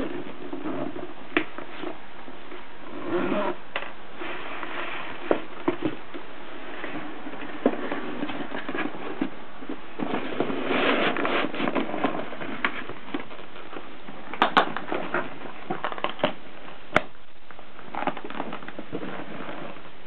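Handling noise from a portable typewriter's carrying case: rustling and scattered sharp clicks and knocks as the case and its metal clasps are worked, with the sharpest clicks near the end.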